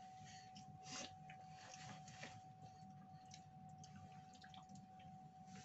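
Near silence: room tone with a faint steady whine and scattered faint small clicks and rustles.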